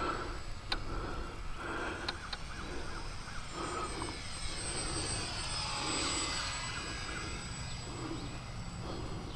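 Small electric motor and propeller of a Micro Draco RC plane whining in flight, its pitch sliding up and down as it moves about and the throttle changes.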